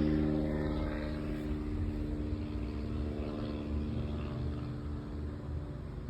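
Distant engine drone: a steady pitched hum that slowly fades away, with wind rumbling on the microphone.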